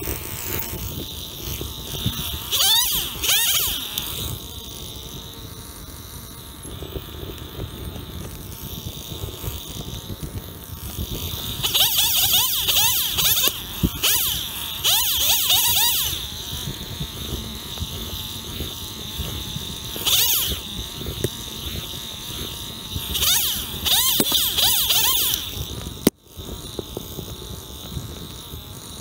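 Two-stroke gas chainsaw idling and revving up in several bursts while cutting cherry branches, its pitch rising and falling with each throttle burst.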